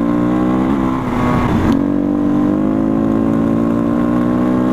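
Husqvarna 510 SMR supermoto's single-cylinder four-stroke engine running at a steady pitch while riding. The revs briefly dip and pick up again about a second in.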